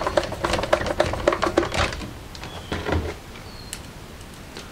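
Hand screwdriver driving a screw into a plastic boombox case: a quick run of clicks for about two seconds, then a few softer, scattered taps and clicks.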